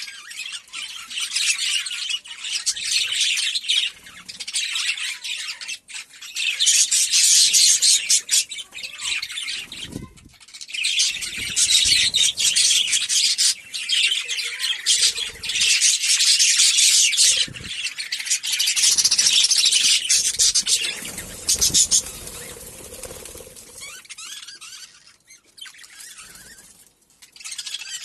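A colony of many budgerigars chattering and chirping, loud in stretches of a few seconds, then quieter near the end.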